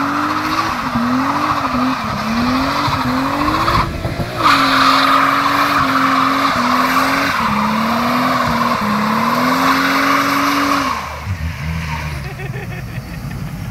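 Toyota Soarer's 1G-GTE twin-turbo straight-six revving hard in a burnout, its rear tyres squealing. The revs climb and drop back again and again. The squeal breaks off briefly about four seconds in, and about eleven seconds in the squeal stops and the engine falls to a lower, quieter run.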